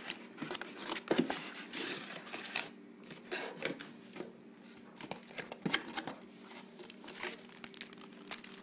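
Packaging being handled: a plastic bag around the router crinkling, with cardboard and paper rustling and tapping in irregular bursts.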